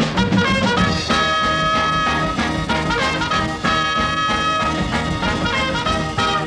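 Brassy big-band swing music with trumpets and trombones over a steady beat.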